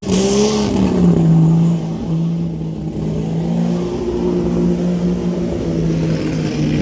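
Off-road 4x4 vehicle engine running under load at fairly steady revs, its pitch easing down just under a second in and then holding with small rises and falls.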